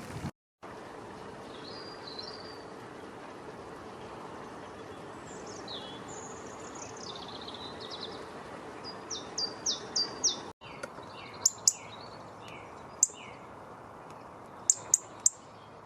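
Small birds singing: short high notes and falling phrases, then a run of quick repeated chirps with a few sharp louder calls in the second half, over steady background noise.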